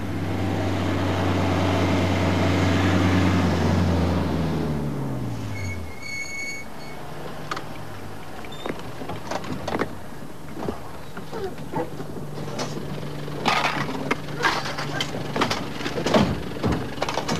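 A vehicle engine running, then its pitch falling as the vehicle slows and pulls up about five seconds in, followed by a short high squeal. Then scattered clunks of doors and gear, becoming a quick run of sharp knocks and bangs near the end as kit is loaded onto a Land Rover.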